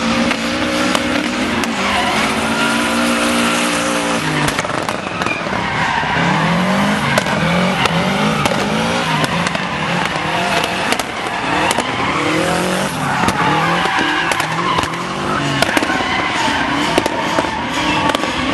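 Drift cars sliding in tandem: engines revving up and down over and over while the tyres squeal through long slides.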